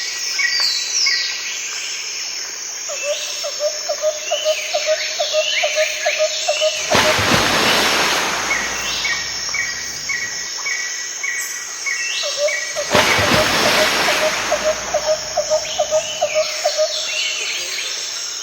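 Birds chirping and trilling, with short high calls throughout and a run of fast pulsed lower notes, twice. Two rushing swells of noise rise and fade about six seconds apart.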